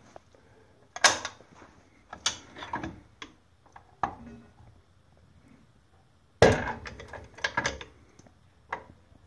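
A cast-iron machinery jack worked with a long steel bar in its handle socket, lifting a heavy surface grinder. It gives separate metallic clacks and ratchet clicks, with a denser run of clattering about two-thirds of the way through.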